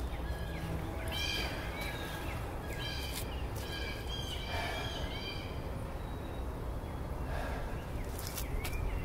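Songbirds singing in several short chirping phrases, over a steady low rumble. A few light clicks near the end.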